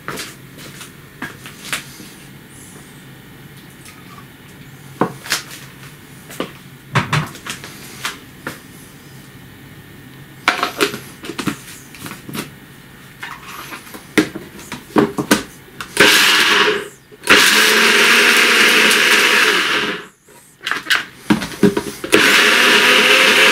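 Clicks and knocks of a NutriBullet's plastic cup and blade unit being handled and fitted together. Then, about two-thirds of the way in, the NutriBullet extractor blender runs loudly, grinding wheat sprouts with water into a dough. It stops and starts a couple of times, then runs steadily.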